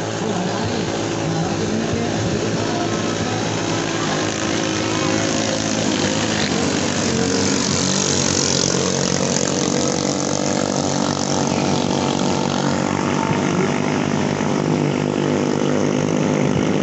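Small-engine longtail (ketinting) racing boats running flat out, a mix of high-revving engine notes. One boat is loudest as it passes close about eight seconds in.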